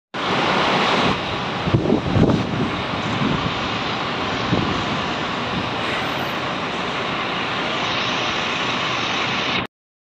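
Loud steady rushing noise of city street ambience with wind buffeting the microphone, a few low thumps about two seconds in; it cuts off suddenly just before the end.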